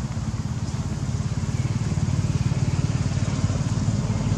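An engine running steadily nearby, a low, evenly pulsing rumble that grows a little louder about a second and a half in.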